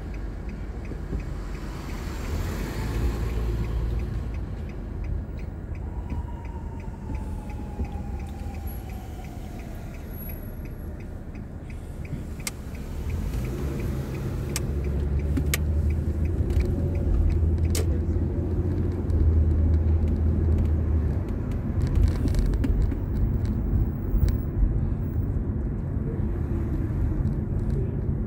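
Car engine and road noise heard from inside the cabin: the car idles in traffic, then pulls away and drives on, the low rumble growing louder about halfway through.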